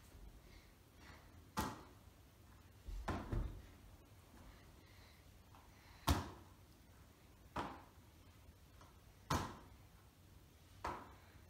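A football being caught in latex-palmed goalkeeper gloves: a series of short thumps, about one every second and a half, in a small room.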